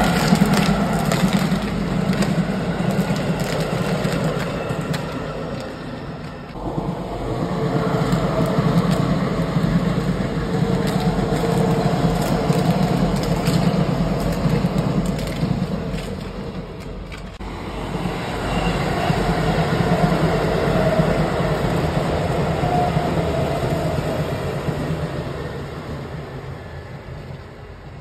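Keisei Line electric trains running past at close range: a steady rumble of wheels on rail with scattered sharp cracks. The sound dips twice and fades away over the last few seconds.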